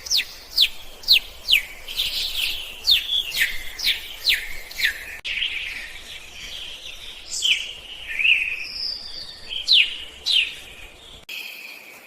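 Songbirds singing: a quick run of clear whistled notes, each sliding down in pitch, about two a second, then after a break looser chirps and a short rising note, with another pair of falling whistles near the end.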